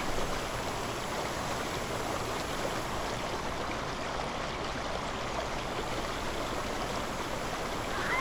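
Steady, even rushing noise with no distinct events, like running water.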